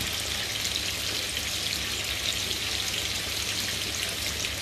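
Seasoned chicken pieces sizzling as they brown in hot oil in a frying pan: a steady hiss dotted with fine crackles and pops.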